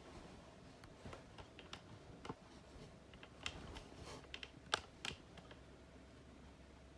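Scattered light clicks and taps, irregular and close-by, with one sharper click a little past the middle and a couple more just after it.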